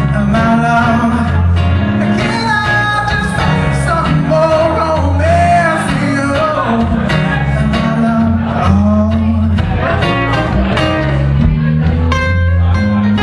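Live band playing: a man singing over a strummed acoustic guitar and an electric bass guitar.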